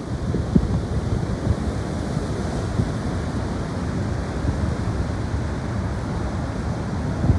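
Strong gusty wind buffeting the microphone: a steady low rumble with small gusts throughout.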